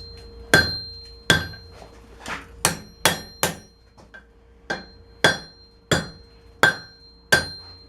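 Hand hammer striking the steel of a forged-down wrench on an anvil, about a dozen blows at an uneven pace, with a steady ring hanging on between them. The point of a karambit blade is being bent into a hook.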